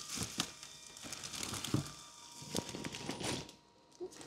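Packaging rustling and crinkling in irregular crackles as a new replacement part is worked out of it by hand.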